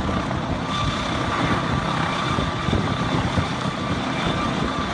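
Helicopter hovering close by: a steady, loud rotor thrum with a faint high turbine whine over it.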